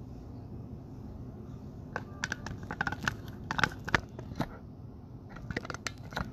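Two clusters of sharp, crackling clicks: the first starts about two seconds in and lasts a couple of seconds, the second comes near the end.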